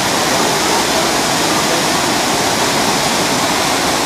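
Water pouring down a man-made rockwork waterfall and splashing into the pool below, a steady, loud rush.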